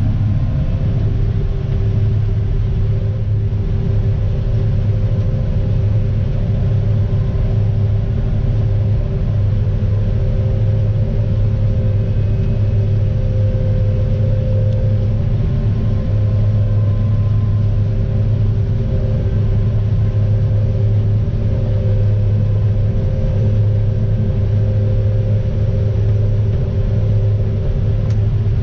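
1993 John Deere 9500 Maximizer combine running steadily under load while harvesting wheat, heard from inside the cab: an even drone of engine and threshing machinery, with a strong low hum and a couple of steady mid tones.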